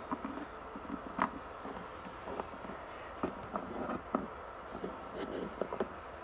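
Faint, scattered taps and light scrapes of small plastic Littlest Pet Shop figurines being set down and slid by hand on a hard, smooth floor.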